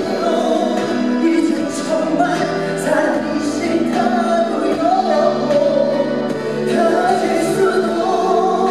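A male singer singing live into a handheld microphone over musical accompaniment, holding long notes with a slight waver, heard through the sound system.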